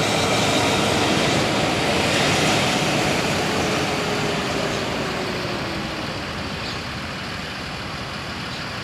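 Newly tuned racing engine running, its pitch falling slowly over several seconds as it gradually quietens.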